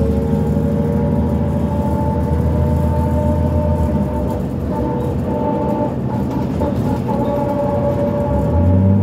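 Cummins ISL diesel engine of a 2005 New Flyer D40LF transit bus fitted with a NABI exhaust pipe, heard from inside the bus while riding. The engine runs steadily, eases off about four seconds in and picks up again near the end, with a steady higher whine above it.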